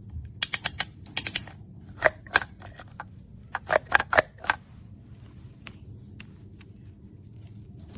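Wooden toy toaster and sandwich pieces being handled, giving sharp clicks and knocks. There is a quick run of light clicks in the first second and a half, a few louder knocks from about two to four and a half seconds in, then only scattered faint ticks.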